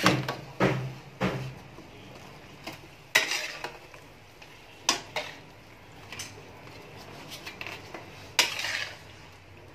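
A metal spatula scrapes and clanks against a steel wok as stir-fried squid is stirred and scooped out. The strokes come irregularly, with louder scrapes about three seconds in and again near the end.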